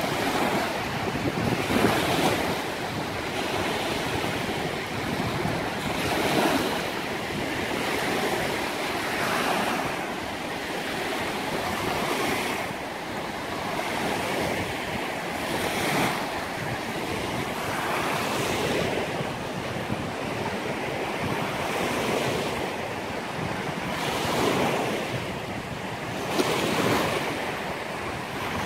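Small Lake Erie waves breaking and washing up onto a sandy beach, surging every few seconds over a steady rush of water.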